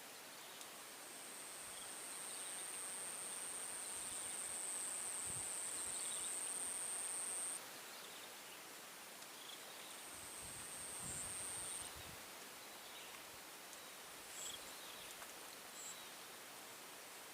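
An insect's high-pitched, steady buzzing call in a swamp: one long stretch of about seven seconds that cuts off suddenly, then a shorter burst of about two seconds, over faint outdoor background.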